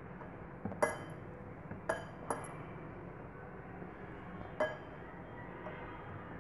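Light glass clinks from a glass mixing bowl, knocked by the bangles on the hand pressing flour coating onto a chicken drumstick: four short ringing clinks, around one, two, two and a half and four and a half seconds in.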